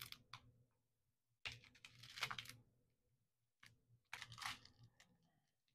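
Faint crinkling of small plastic bags of diamond painting drills being handled, in three short bouts, the longest about a second and a half in.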